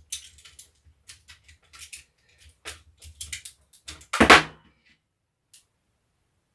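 Clicks and taps of the cordless drill's plastic casing and parts being handled and fitted back together, with one loud knock about four seconds in.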